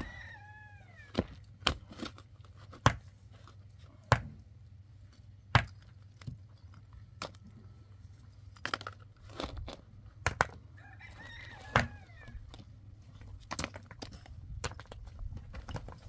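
Sharp, irregular knocks, about a dozen of them, are the loudest sounds. A chicken calls near the start and again about eleven seconds in. A low steady hum runs underneath.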